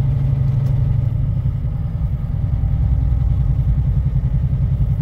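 Diesel semi truck hauling grain trailers, its engine running at low road speed with a steady low rumble; the engine note drops a little over a second in.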